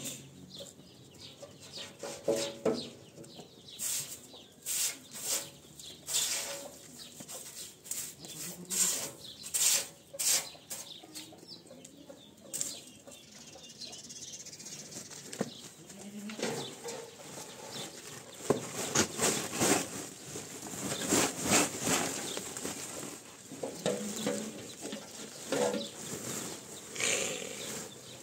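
Straw broom sweeping out a sheet-metal feeding trough in quick, swishing strokes, then rustling as fresh-cut green fodder is spread in the trough.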